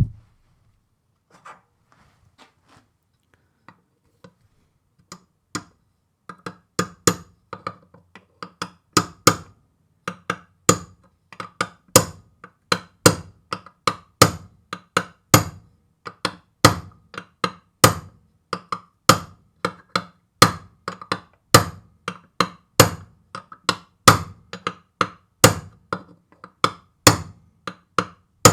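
Hammer tapping a bearing into its bore in an aluminium gearbox case, working it down without heat. A few scattered taps at first, then steady sharp knocks about two a second for most of the time.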